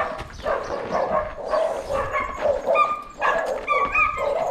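Dogs barking, a quick run of short repeated barks with no break.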